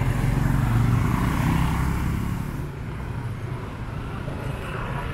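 A motor vehicle's engine rumbling close by as it passes on the street. It is loudest in the first couple of seconds, then fades into the street's background noise.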